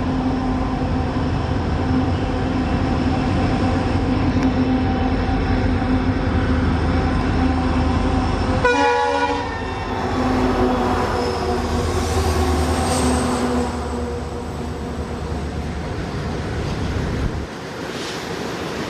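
Twin EMD WDG-4 diesel locomotives, with 16-cylinder two-stroke engines, working hard under load as they pass close by. Their steady engine hum drops in pitch about nine seconds in as they go past. In the last few seconds the loaded goods wagons roll by with wheel clatter.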